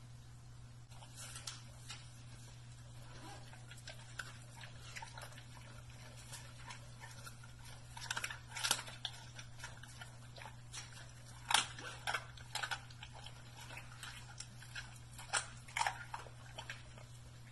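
An American Bully eating raw meat and chicken from a stainless steel bowl: irregular chewing and biting with sharp clicks and crunches, coming in bursts that are loudest about eight, eleven and fifteen seconds in. A steady low hum sits under it.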